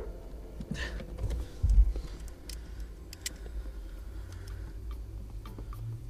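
Scattered clicks and light knocks of a Mercedes W220 throttle pedal assembly being handled and fastened into place on the footwell floor, with one heavier thump about two seconds in.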